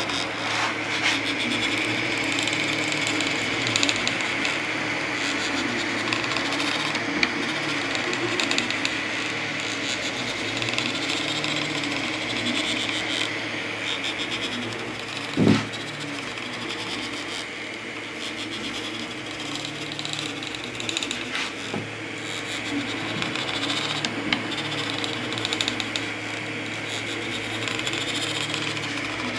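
3D printer printing: the stepper motors whine in low tones that shift pitch and step on and off as the print head moves, over the steady whir of the cooling fans. A single thump about halfway through.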